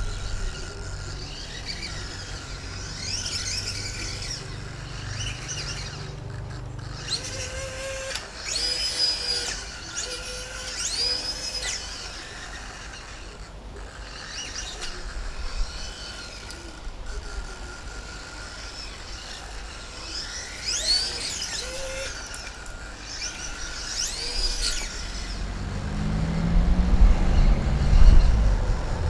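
Whirring of an antenna tracker's electric pan-and-tilt gear motors as it swings its Yagi antenna, with a low hum that comes and goes and swells near the end. Birds chirp in short phrases several times throughout.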